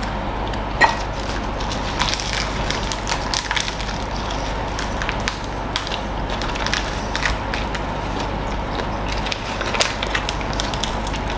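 Crunching and chewing of crispy bánh xèo (Vietnamese fried rice-flour pancake) wrapped in lettuce and fresh herbs, close to the microphone, with several people eating at once. There is one sharper crunch about a second in, over a steady low hum.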